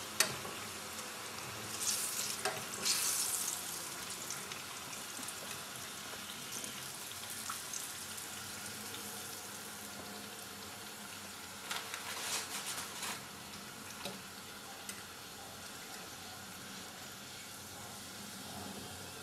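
Floured eggplant slices frying in hot oil in a frying pan, a steady sizzle, with brief louder bursts twice as the cooked slices are lifted out with forks.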